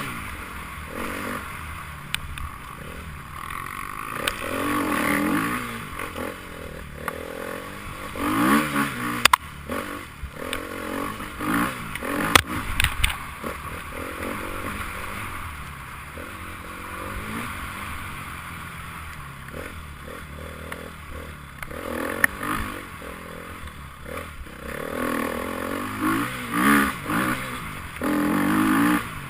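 Enduro motorcycle engine revving up and down in bursts, with sharp clattering knocks in between.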